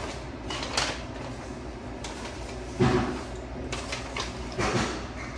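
Handling noises: three short knocks and rustles, the loudest a little before the middle, as the toothbrush and its packaging are picked up and moved about.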